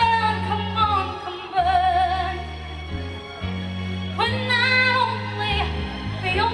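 A woman singing over backing music with sustained bass notes, holding a long note with vibrato about two seconds in.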